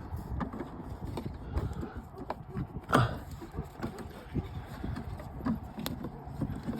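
Scattered small plastic clicks and knocks as a reverse-light bulb socket is worked back into a car's tail-light housing, with the loudest knock about three seconds in and a sharp click near the end.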